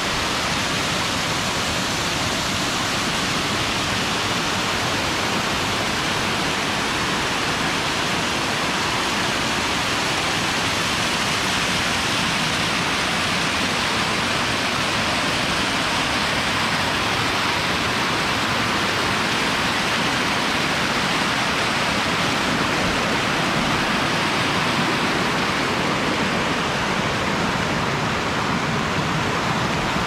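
A large waterfall: falling water rushing steadily in an even hiss.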